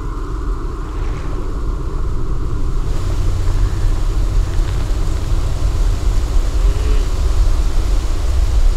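Electroacoustic soundtrack: a dense, low rumbling drone with a hiss over it, growing louder about three seconds in.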